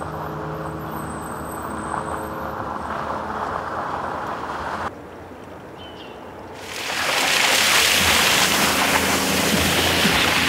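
Vehicle engine running at low speed on an icy residential street; after a quieter moment about halfway, a loud steady hiss of tyres through wet slush comes in, with an engine hum underneath.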